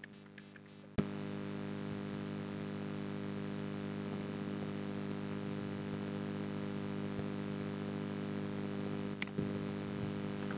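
Steady electrical mains hum and buzz on the recording, a stack of even tones with light static, switching on with a click about a second in. A few faint clicks come before it and a single short click comes near the end.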